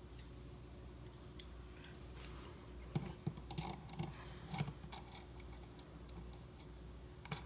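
Faint, irregular clicks and taps of a GFCI outlet and its wires being handled, over a low steady hum.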